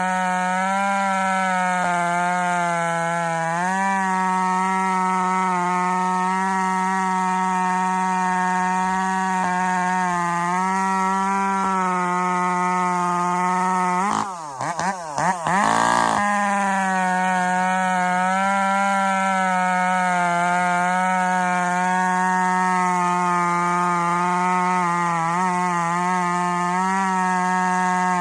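Ported two-stroke chainsaw running at a high, steady speed, its note holding nearly level. About halfway through the level dips briefly and the pitch warbles up and down for a couple of seconds before the steady high note returns.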